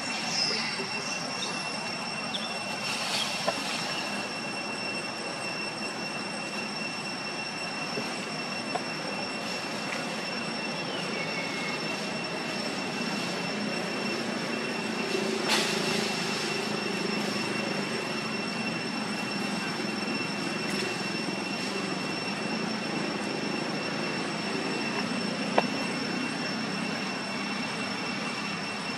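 Steady outdoor background hiss with two constant high-pitched whining tones, a low hum that grows a little stronger about halfway through, and a few sharp clicks.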